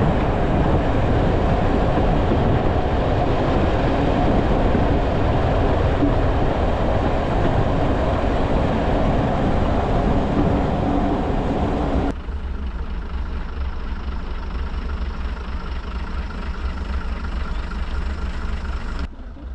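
Heritage diesel train running along the line, heard at an open carriage window: a loud, steady rumble of wheels and engine with rushing air. About twelve seconds in, the sound cuts abruptly to a much quieter one: a standing train's low engine hum with wind on the microphone.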